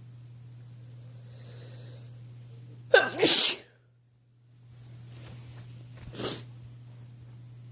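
A person sneezing: one loud sneeze about three seconds in, then a softer second sneeze about three seconds later. A steady low hum runs underneath.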